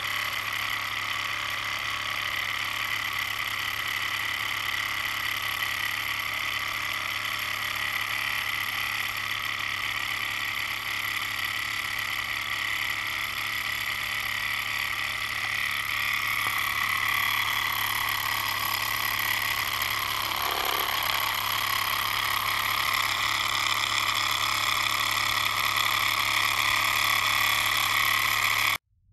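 Small homemade glass free-displacer (Ringbom) Stirling engine running fast, at around 2100 RPM, its top speed, with a steady mechanical whir. The sound gets a little louder and brighter about halfway through and cuts off suddenly near the end.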